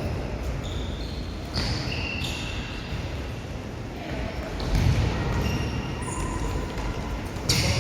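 Indoor futsal play: the ball thudding, short high squeaks and players' voices in an echoing hall, with a loud sharp hit near the end.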